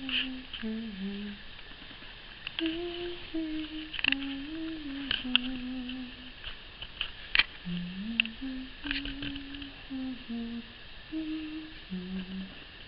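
A person humming a slow tune with held notes that step up and down, plus a few sharp clicks.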